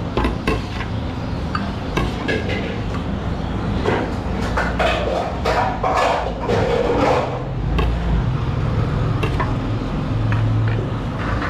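Steel ladle clinking and scraping against a large steel serving tray as siri paye broth is ladled into a bowl, with a splash of broth pouring in around the middle. A steady low hum runs underneath.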